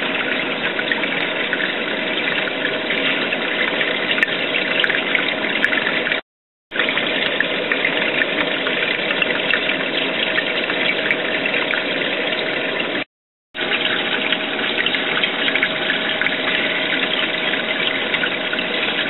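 Steady rush of circulating water and pump noise from an open-top saltwater aquarium, with a faint steady hum. It comes in three stretches, broken twice by short cuts to silence.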